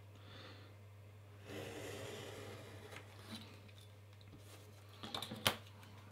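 Stanley knife blade cutting through two glued layers of leather, a soft scraping for a second or two, then a few sharp clicks and knocks near the end as the knife is set down on the cutting mat.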